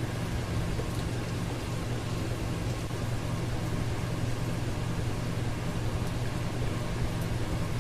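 Ceiling fan running steadily: an even whoosh of moving air over a low motor hum.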